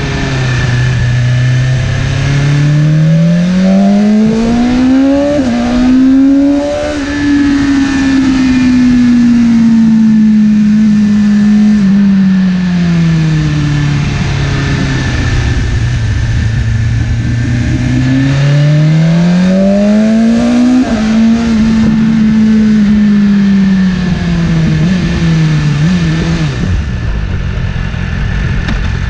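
BMW S1000RR's inline-four engine under way, heard from on the bike. Twice the revs climb for a few seconds and then fall slowly as the throttle comes off, with small jumps in pitch at the gear changes. Wind noise runs underneath.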